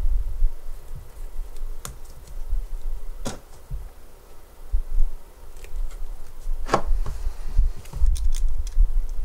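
Scattered small clicks and taps of hands handling card pieces and a plastic glue bottle on a wooden desk, over a low rumble. There is a louder knock about two-thirds of the way through and a quick cluster of ticks near the end.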